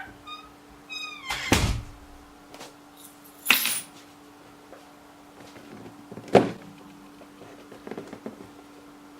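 Handling sounds: a few sharp knocks and thumps, the loudest about three and a half and six and a half seconds in, after a short high squeak or two near the start. A faint steady hum runs underneath.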